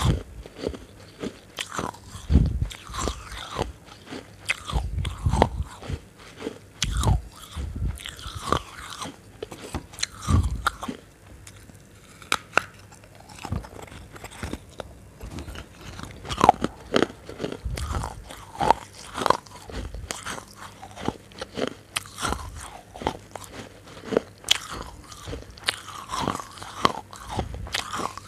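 Close-miked chewing and biting of crunchy food: irregular crisp crunches and mouth clicks, with a few low thumps in the first half.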